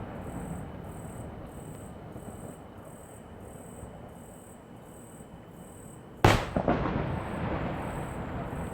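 A fireworks shell bursts with one sharp, loud boom about six seconds in, followed by crackling and a rumbling echo. Before it, the low rumble of earlier bursts fades away.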